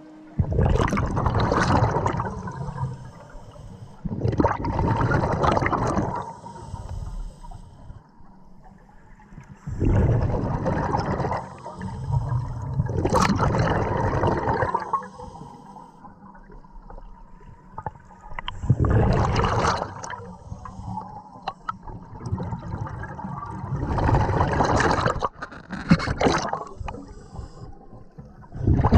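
Scuba regulator exhaust bubbling underwater as the diver filming breathes out: a bubbling rush about every five seconds, with quieter gaps for each inhale.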